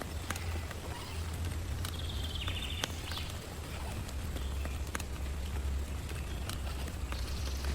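Heavy rain pouring onto a tent, with a steady hiss and low rumble and many sharp, irregular ticks of individual drops striking the fabric.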